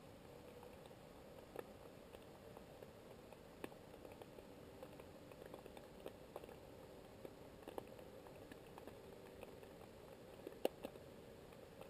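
Faint underwater ambience: a low steady hum with small clicks and crackles scattered throughout, one sharper click about ten and a half seconds in.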